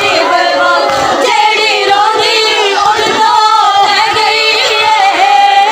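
Women's voices chanting a mournful lament, several voices overlapping in a wavering, sung line, in the style of a majlis mourning recitation.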